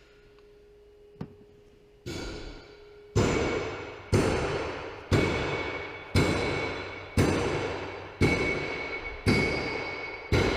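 Background music with a steady beat: about two seconds in, percussive pitched hits start, about one a second, each ringing and fading before the next. Before that there is a faint steady hum and a single small click.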